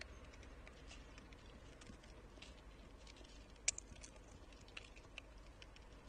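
Faint, irregular small clicks and ticks from an Ezo red squirrel feeding on seeds on a wooden feeder tray. One sharper click comes about three and a half seconds in.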